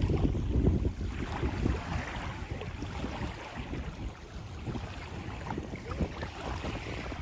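Wind buffeting the microphone: an uneven, gusty low rumble, strongest in the first second, with a faint hiss of surf or spray above it.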